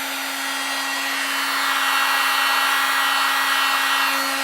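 Heat gun blowing steadily with a constant motor hum, shrinking heat-shrink tubing over soldered wire connections; the airflow noise grows louder from about a second in and eases off near the end.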